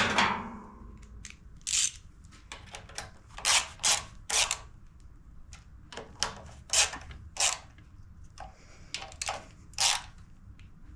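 Irregular sharp metallic clicks and light taps from a hand tool working at the governor linkage of a Honda GCV160 engine while the governor spring is being fitted, with a louder knock at the very start.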